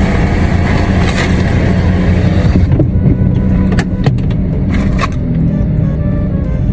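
Steady low rumble of a car running, heard from inside the cabin, with a few short crinkles and clicks about halfway through.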